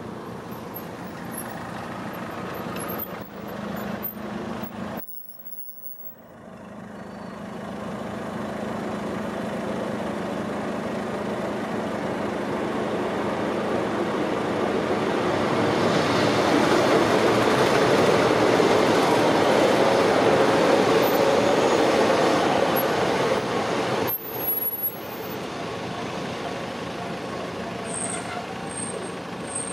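Class 156 diesel multiple unit approaching on the line, its diesel engines and running noise building steadily to a peak about two-thirds of the way through, then easing as it drifts into the station. A thin high brake squeal starts near the end, and the sound briefly cuts out about five seconds in.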